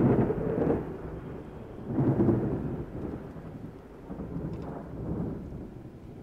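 Thunder rumbling over rain, in rolling swells: the loudest at the start and about two seconds in, smaller ones near five seconds, then dying away.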